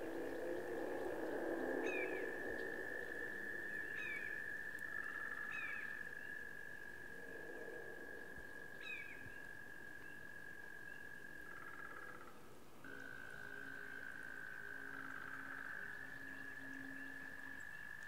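Frogs trilling: one long, steady high trill that breaks off briefly about thirteen seconds in, with a shorter, lower trill joining a few times. A few short falling chirps sound above it.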